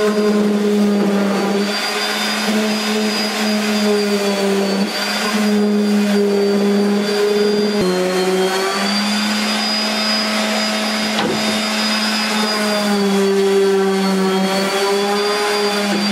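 A small electric motor in a power tool running steadily at speed with a whine, its pitch stepping slightly a couple of times.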